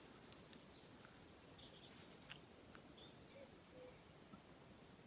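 Near silence: faint open-air ambience with a few brief, distant bird chirps and occasional small clicks, the sharpest about a third of a second in.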